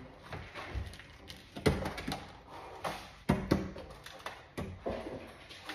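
Parts and packaging being handled: irregular clicks, taps and knocks, with two sharp knocks about a third of the way in and two more just after the middle.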